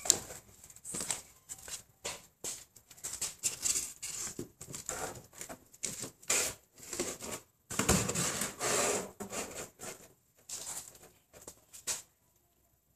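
Cat scooping yogurt out of a plastic cup with its front paw and licking it: irregular small scraping, tapping and lapping noises, stopping near the end.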